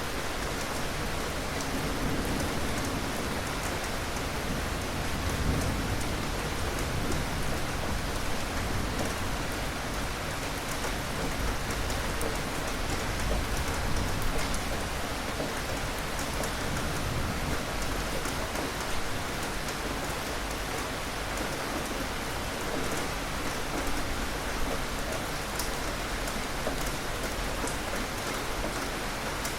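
Steady rain falling, an even hiss of rain on surfaces with scattered drop ticks.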